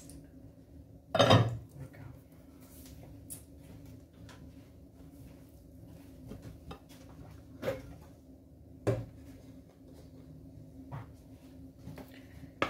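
Kitchen pots and utensils being handled: one loud clatter about a second in, then a few scattered knocks and clinks over a low steady hum.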